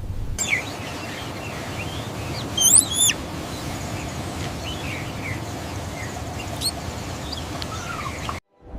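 Small birds chirping and calling over a steady background hiss, with two louder chirps about three seconds in. The birdsong cuts off abruptly near the end.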